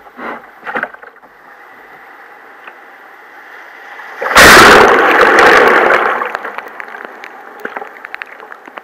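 Water lapping and splashing against a sailing kayak's hull. About four seconds in, a sudden loud splash of a wave hits the boat and fades away over a couple of seconds.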